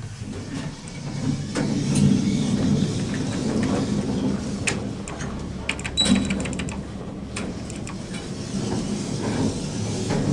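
Refurbished OTIS passenger lift at a floor stop: a steady rumble and hiss from the car, with a run of clicks and knocks from the door and lift mechanism in the middle and a short high tone about six seconds in.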